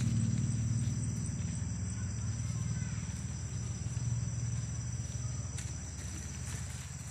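Crickets chirping in a steady high trill. Under them, the low hum of a vehicle engine slowly fades away.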